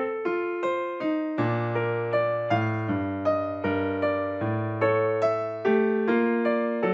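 Background piano music: a light keyboard melody, with notes struck a few times a second over held bass notes.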